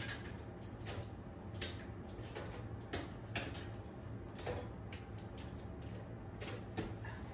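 Scattered light clicks and taps of kitchen handling, about one a second, over a steady low hum.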